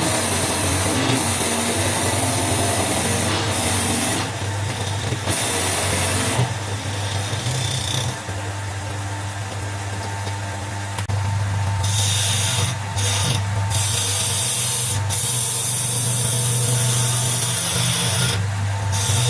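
Wood lathe motor running with a steady low hum while a turning gouge cuts the spinning wood, the cutting hiss starting and stopping several times as the tool goes on and off the work.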